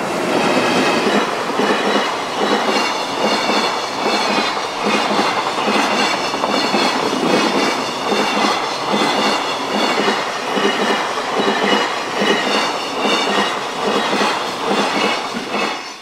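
Freight train of container wagons behind an EF210 electric locomotive passing over a level crossing, the wheels clattering rhythmically over the rail joints, with the crossing's warning bell ringing steadily.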